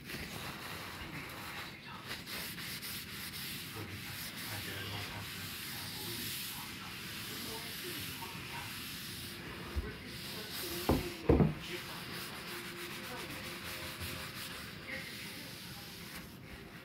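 Cloth rubbing a beeswax and mineral oil finish into a walnut cutting board, a steady swishing scrub of fabric on wood. A few dull knocks come about two-thirds of the way through.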